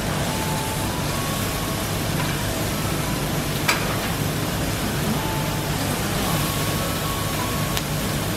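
Steady sizzling of Kobe beef and vegetables on a steel teppanyaki griddle over the hum of the grill's extractor, with one sharp click of the chef's knife against the steel plate about three and a half seconds in.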